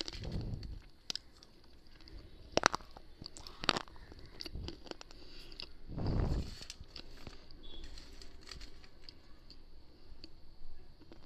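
Close-miked biting and chewing of brittle slate pencil and baked clay pieces: scattered crunches, two sharp cracks a few seconds in and a couple of dull low thumps.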